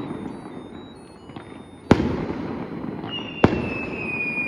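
Fireworks going off: two sharp bangs about a second and a half apart, each trailing off in a rumble, and a high whistle that falls slightly in pitch starting about three seconds in.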